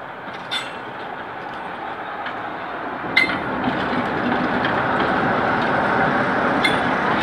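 Class 47 diesel locomotive hauling coaches past close by, its running sound growing louder as it draws level. Sharp clicks from the wheels on the track stand out about half a second in, just after three seconds and near the end.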